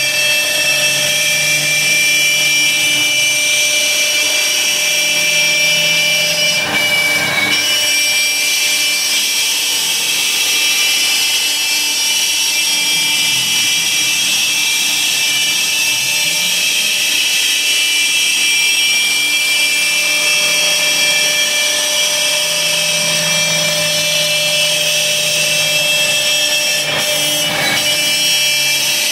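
CNC router spindle running with a steady high whine as its bit cuts through 1/2" plywood, with a lower hum that comes and goes and two brief swells of cutting noise.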